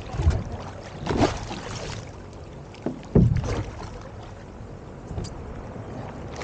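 Water splashing and sloshing in a few irregular bursts, the strongest about three seconds in.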